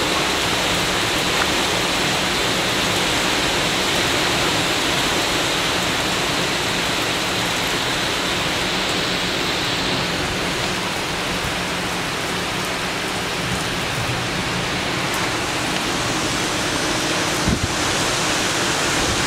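Heavy monsoon storm: a dense, steady hiss of rain pouring onto paving and foliage, with strong wind through the trees. A single brief knock sounds near the end.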